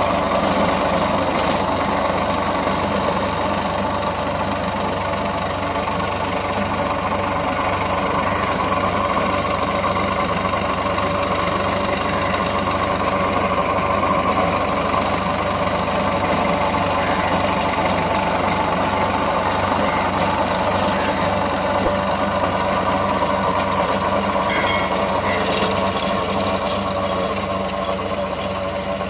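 Swaraj 744 FE tractor's three-cylinder diesel engine running steadily under load while driving a rotavator through wet soil.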